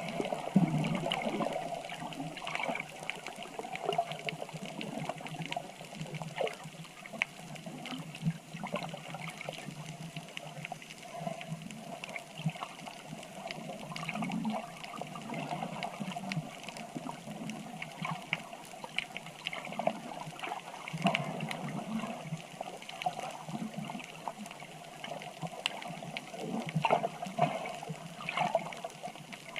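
Water trickling and sloshing, with many small clicks and pops scattered through it.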